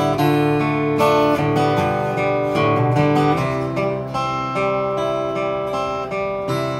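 K.Yairi acoustic guitar playing alone, with chords picked out in arpeggios and the notes left ringing; the chord changes about halfway through.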